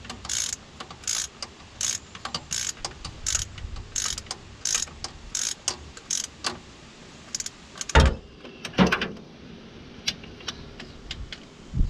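Hand ratchet wrench clicking in short back-swings, about three every two seconds, while a fuel pump mounting bolt is run in. The ratcheting stops, followed by two loud knocks of metal a little under a second apart.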